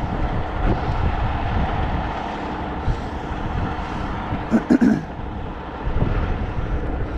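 Steady low rumble of a truck engine running outdoors, with wind noise over it. About four and a half seconds in there is a short, louder, higher-pitched sound.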